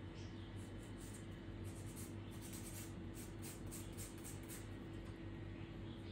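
Nail file rasping back and forth across a fingernail in short, faint strokes, several a second, easing off after about four and a half seconds. A steady low hum runs underneath.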